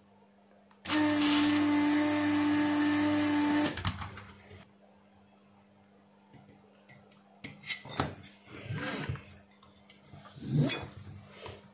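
Electric desoldering gun's vacuum pump running steadily for about three seconds, sucking solder from a joint on a circuit board. Later, scattered knocks and rustles as the board and its aluminium heatsinks are handled.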